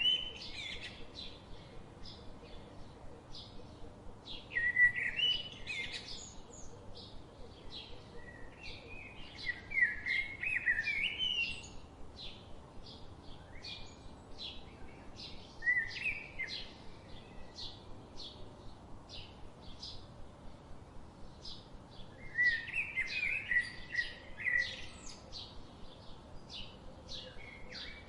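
Songbirds singing: short warbling song phrases come every few seconds over a steady run of brief high chirps.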